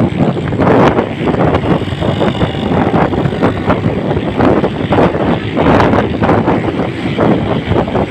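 Wind buffeting the microphone of a moving motorcycle, with the bike's engine and road noise running underneath.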